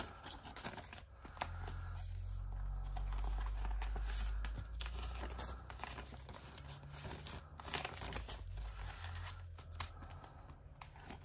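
Paper banknotes being counted and flipped by hand, with short crisp rustles and crinkles of the bills. A low hum comes and goes underneath.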